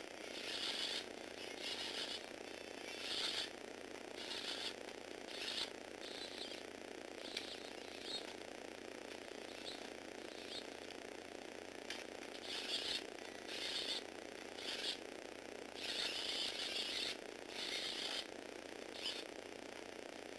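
Small electric motor and plastic gear train of a motorised Lego Technic car running steadily, with short spells of louder, higher rattling noise coming and going every second or so.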